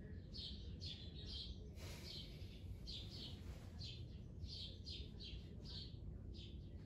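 A small bird chirping repeatedly in short, high chirps, about two a second and irregularly spaced, over a steady low background rumble.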